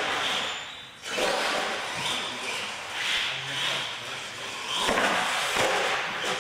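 Radio-controlled monster truck driving on a concrete floor: its motor and tyres make a noisy whir that swells and falls with the throttle. The sound drops away about a second in, then picks up again.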